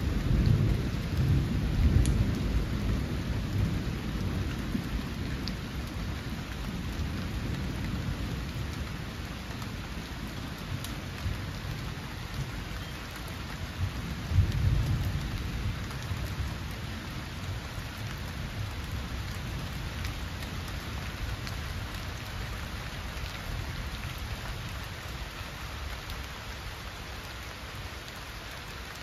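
Steady rain falling on garden foliage and a stone path, with thunder rumbling twice: in the first few seconds and again about halfway through, the rumbling dying away toward the end.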